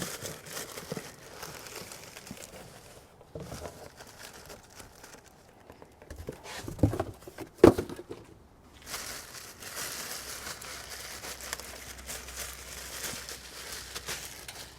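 Packaging of a replacement alternator being opened: crinkling, crumpling and tearing, with a couple of sharp knocks about halfway through.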